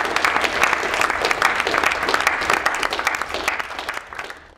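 Audience applauding, with dense clapping that fades over the last second and then cuts off.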